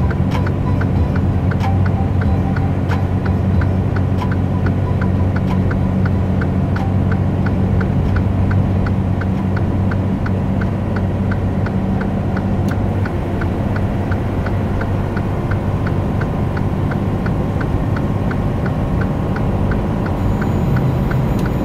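Steady engine drone and road noise inside a truck cab at highway speed, with a light, regular ticking a few times a second.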